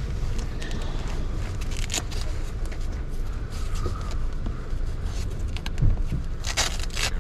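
Rustling and scraping as a boot is pulled on and its laces tightened, with a few sharp zip-like pulls near the end, over a steady low rumble.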